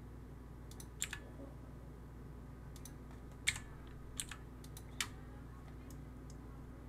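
Scattered clicks of a computer keyboard and mouse being worked, the loudest about three and a half seconds in, over a steady low room hum.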